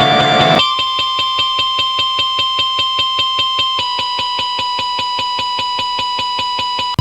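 Guitar music breaks off about half a second in, followed by a steady electronic pulsing tone, about four pulses a second, which steps slightly lower in pitch midway.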